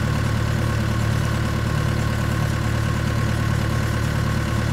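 Mini excavator's engine idling steadily, an even low drone that does not change.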